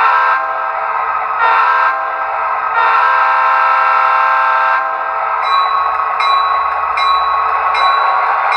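Diesel locomotive horn sound from a model SD40: two short blasts, then one long blast of about two seconds, followed by the locomotive bell ringing about once every 0.7 seconds over a steady engine sound.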